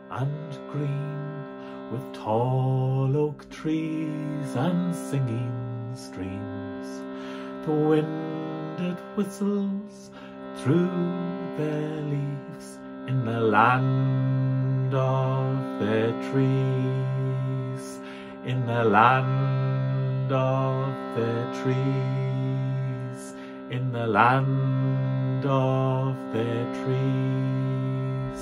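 A shruti box drone holds steady reed chords, with short wordless vocal swoops gliding up and down over it every few seconds.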